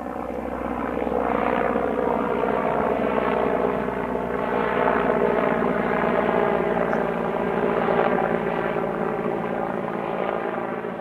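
Mil Mi-24P attack helicopter in flight, its main rotor and twin turboshaft engines giving a steady, even drone.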